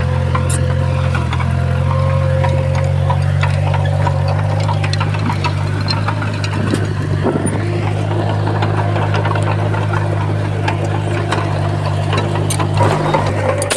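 Heavy earthmoving machine's diesel engine running steadily under load, with a steady whine above it and scattered clanks and knocks throughout.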